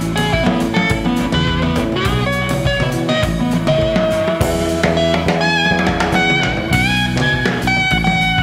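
Background music: an instrumental passage of a song with electric guitar lines over a drum kit beat.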